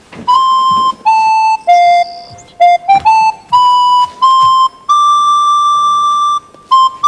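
Background music: a flute playing a slow tune of separate held notes, with one long held note about five seconds in.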